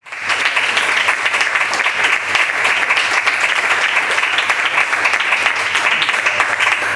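Audience applauding: dense, even clapping from a crowd.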